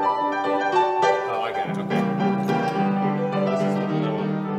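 Instrumental background music: a melody of held notes, with a low sustained note coming in about two seconds in.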